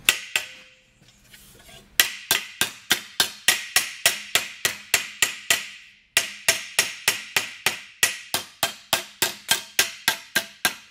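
A sheet-metal panel hammered along its edge over a steel tube: one ringing metallic blow, then a fast, even run of blows at about four a second, with a short break about six seconds in. The hammering stretches the panel's edge to bring it straight.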